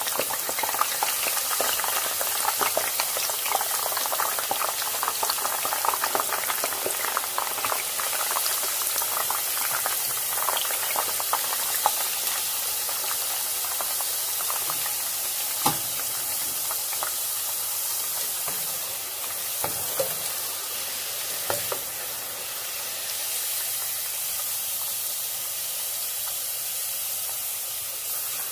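Potato slices deep-frying in hot oil: a steady sizzle with dense crackling and popping that thins out after about twelve seconds. A few sharp light taps come in around the middle.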